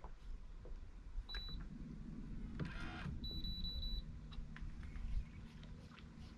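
Electronic beeps: one short high beep, then a quick run of four or so beeps at the same pitch about three seconds in, over a low steady hum.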